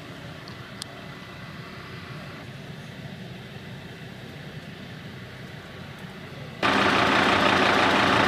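Faint steady outdoor background with a low hum. About two-thirds of the way in, a Scania fire engine's diesel engine cuts in much louder, idling steadily.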